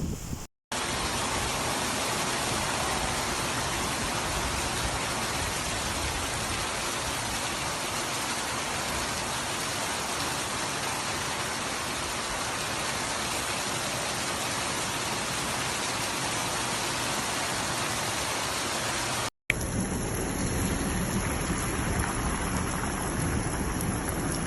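Rain falling steadily, an even hiss of downpour. It drops out briefly near the start and again about 19 seconds in.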